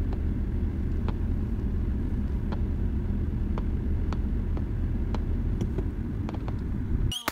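Steady low rumble of a car driving, heard from inside the cabin, with faint scattered pops of distant aerial fireworks. The rumble stops abruptly just before the end.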